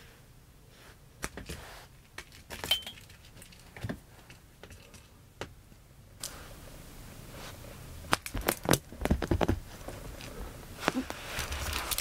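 A cat batting at and pouncing on a small feathered toy on carpet: scattered soft taps, scuffs and rustles, sparse at first, then a busier flurry of clicks past the middle.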